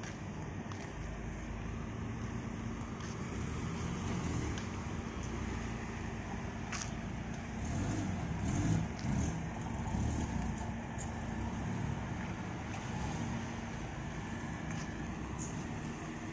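Motor vehicle engine running with a steady low rumble, swelling briefly about eight to ten seconds in, with a few light clicks.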